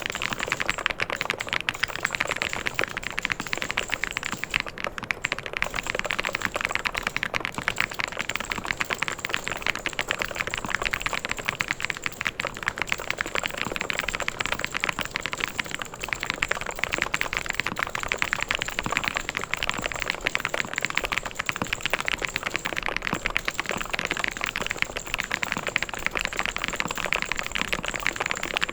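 Fast, continuous typing on a mechanical keyboard: a dense, even stream of key clicks with no pauses.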